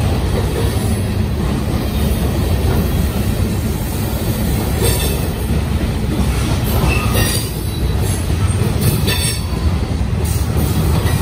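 Freight cars of a mixed manifest train rolling past close by: a steady heavy rumble of steel wheels on the rails, with brief higher-pitched wheel squeals or screeches several times.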